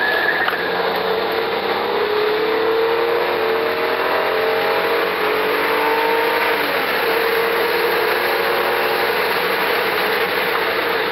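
Hyundai Sonata V6 engine heard from inside the cabin under hard acceleration, its pitch rising steadily to about 6,000 rpm over some six seconds. Then it drops with an upshift and pulls on at a steadier pitch as road speed climbs past 100 km/h.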